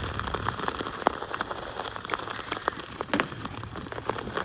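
Ice skate blades on pond ice: a steady scraping with many irregular short clicks and ticks.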